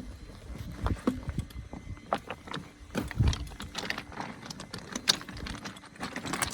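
Electric unicycle ridden over a rough, rocky trail: irregular knocks, clicks and rattles from bumps, over a low rumble.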